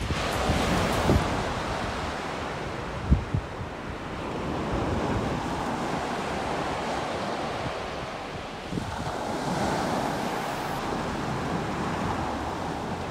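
Sea surf breaking and washing up the beach, swelling and easing as each wave comes in, with wind buffeting the microphone in a few low thumps early on.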